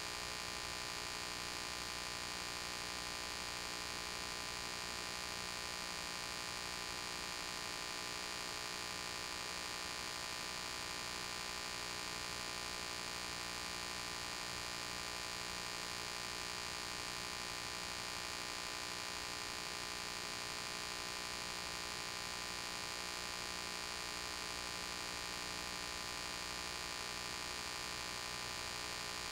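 Steady electrical hum with hiss, unchanging throughout, with no other sound: the empty soundtrack of a silent home-movie film transfer.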